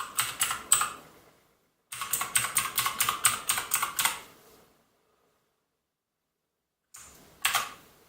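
Clicky blue-switch mechanical keyboard keys being pressed. A few quick keystrokes come first, then a fast run of about a dozen from about two seconds in, then a couple more near the end.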